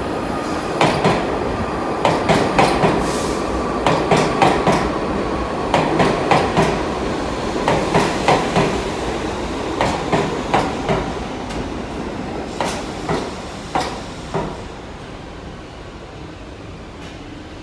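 New York City Subway train arriving and braking along the platform: a steady rolling rumble with groups of wheel clacks over the rail joints that come further apart as it slows. The clacks stop about 14 seconds in as the train rolls to a halt, and it goes quieter.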